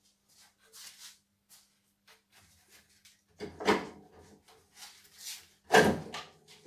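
Two loud clattering knocks, one about three and a half seconds in and a louder one near six seconds, with light clicks and rustles between: metal parts and tools being handled during hands-on engine-removal work on a car.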